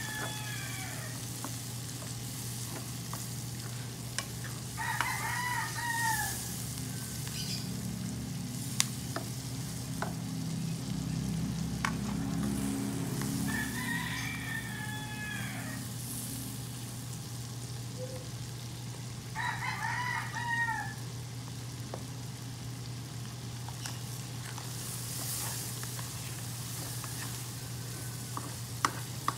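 Sauce sizzling in a stainless steel wok as a spatula stirs it, with now and then a sharp tap of the spatula on the pan. A rooster crows four times in the background: once at the start, then about 5, 14 and 20 seconds in.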